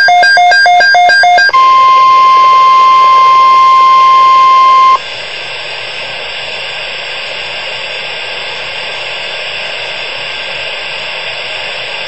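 A fast-pulsing burst of electronic alert tones ends about a second and a half in and gives way to the steady single-pitch warning alarm tone of a NOAA Weather Radio alert broadcast, which cuts off suddenly about five seconds in. Steady radio static hiss follows.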